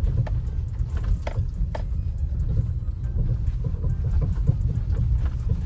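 Maruti Suzuki Brezza's front suspension knocking and rattling irregularly ('khat khat') over a steady low road rumble, heard inside the cabin on a rough road. The driver puts it down to a cracked, worn lower control arm bush letting the arm play.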